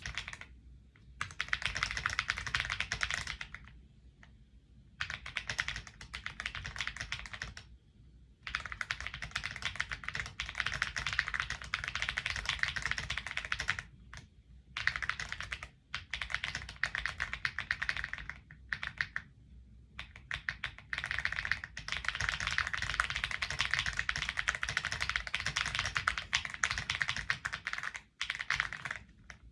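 Typing on a Weikav Nut65 mechanical keyboard with Gateron tactile switches: fast runs of keystroke clicks broken by short pauses every few seconds.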